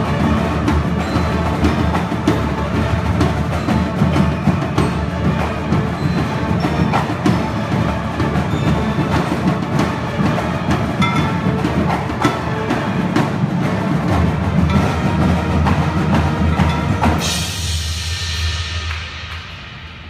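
High school marching band music with the front-ensemble marimbas and mallet percussion over sustained low notes. About seventeen seconds in the piece ends on a cymbal crash that rings on and fades away.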